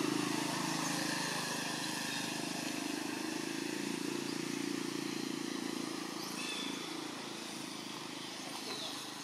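Steady hum of a motor vehicle's engine running, easing off gradually in the second half.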